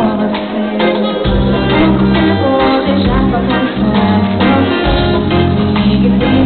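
Live pop music from a band: guitar and bass over a steady beat.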